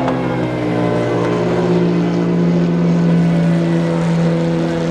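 Engine running steadily at a held speed, a loud hum of several steady tones that shift pitch only slightly.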